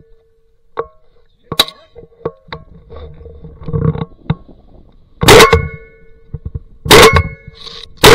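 Shotgun shots: a fainter one a second and a half in, then three loud blasts over the last three seconds, each followed by a brief ringing tone.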